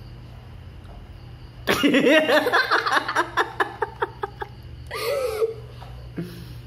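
Hearty laughter breaks out about two seconds in, a run of quick 'ha-ha' pulses that slows and fades, followed by one more short laughing sound. A steady low hum sits underneath.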